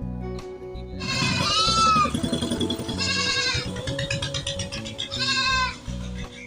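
Goats bleating three times, each call a wavering cry that rises then falls, over steady background music.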